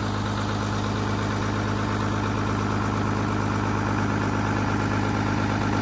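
Ford tractor engine running at a steady, unchanging speed with a constant low hum, working the drain jetter.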